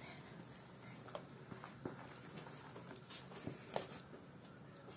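A spoon stirring flour in a plastic mixing bowl, with faint scraping and a few soft taps against the bowl.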